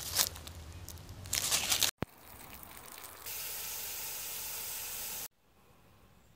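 Food frying in a cast iron Dutch oven: uneven crackle and hiss, then a steady sizzle that stops suddenly a little after five seconds in, leaving only a faint hiss.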